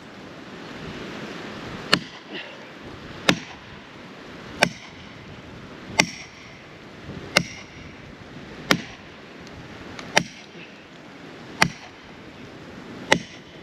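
Felling wedge being hammered into the cut of a standing tree, with nine sharp, evenly spaced blows about one every second and a half, some ringing briefly. The pounding drives the wedge in to tip the tree over.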